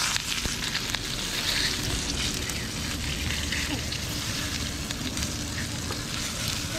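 Oil sizzling steadily in a frying pan as whole egg-stuffed tomatoes fry, with light scrapes and taps of a metal spatula against the pan as they are turned.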